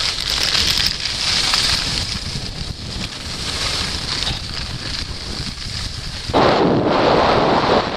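Wind rushing over the camera's microphone while skiing downhill, with the hiss of skis running over snow; about six seconds in the wind noise turns louder and deeper.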